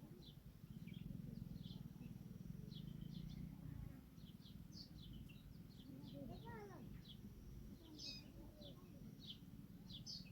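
Faint, short, high chirps from birds, repeated irregularly throughout, over a low steady hum.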